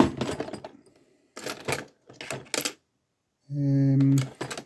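Steel picking tools clicking and scraping inside an old Burg lever padlock, in short bursts of sharp metallic clicks. About three and a half seconds in, a steady low hum of a person's voice lasts nearly a second and is the loudest sound.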